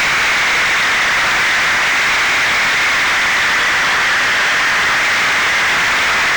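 Steady, loud rushing hiss of airflow and the electric motor's propeller, heard through the onboard camera's microphone on an FPV flying wing.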